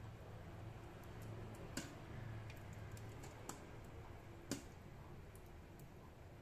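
Popcorn kernels popping under the glass lid of an electric pot: a few scattered pops, three louder ones and some fainter ones, the loudest about four and a half seconds in. The popping is nearly over, with a low steady hum underneath.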